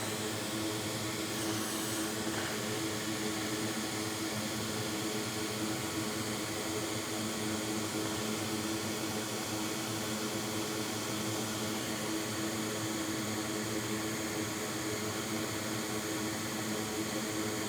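Steady rushing air from a hot air rework station's blower, with a constant low hum, running without change throughout.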